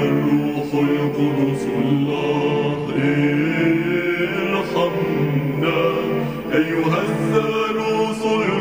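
A slow Arabic Christian hymn, sung in a chant-like style, with voices holding long drawn-out notes over a steady accompaniment.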